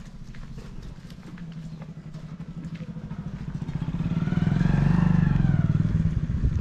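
Motorcycle engine running, growing louder over the last few seconds with its pitch rising and then falling as it peaks, as if passing close by.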